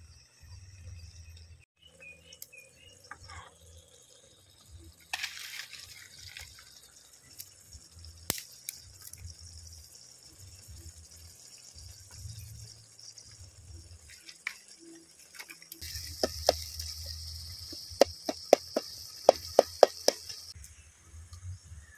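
Tomato-onion masala cooking in an aluminium kadai over a wood fire, with a metal perforated ladle stirring it and scattered clicks. Near the end the stirring picks up into a louder hiss, and the ladle knocks against the pan several times in quick succession.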